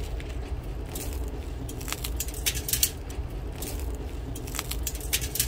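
An oven-toasted slice of Ezekiel sprouted-grain bread crunching and crackling as fingers squeeze and bend it, in a string of irregular crisp crackles.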